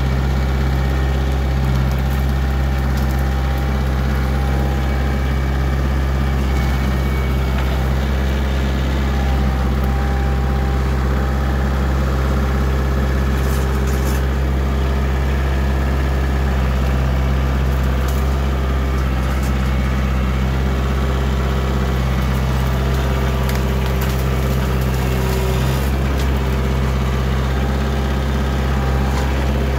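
Kioti DK45SE tractor's diesel engine running steadily at working speed while it pulls a rotary cutter (bush hog) through brush, with a few faint cracks now and then.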